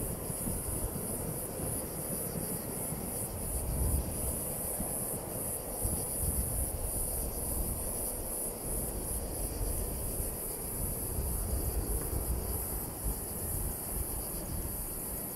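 Distant rumble of an Airbus A321-211's CFM56 jet engines on final approach, low and uneven, with a steady high-pitched insect buzz over it.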